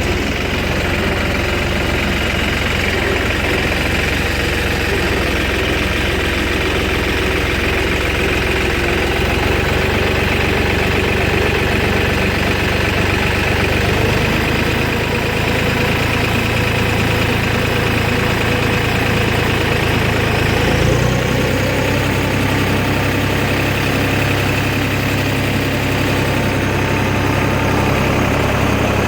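A motor vehicle engine running steadily, its note shifting slightly about 14 seconds in and again, with a short rise, about 21 seconds in.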